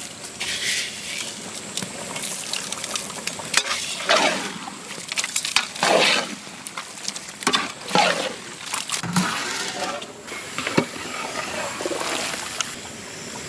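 Wet sloshing and scraping in a large cooking pot as a thick, liquid masala is worked, in irregular strokes that come about every two seconds in the middle.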